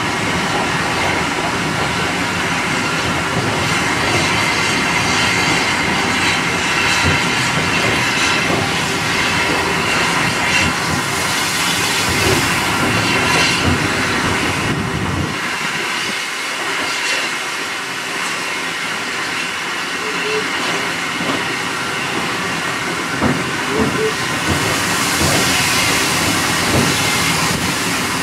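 Railway carriage running along the track, heard from on board: a steady rumble and clatter of wheels on rail, with now and then a faint click at a rail joint. The low rumble drops away for several seconds about halfway through.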